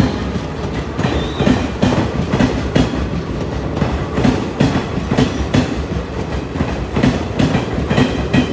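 Passenger train departing, wheels clacking repeatedly over rail joints as the coaches roll past, with a steady rumble underneath and a brief faint wheel squeal about a second in.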